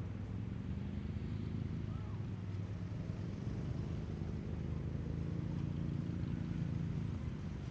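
Piston engine of a light propeller aircraft running steadily, a little louder past the middle and easing slightly near the end, with a sharp click at the very start.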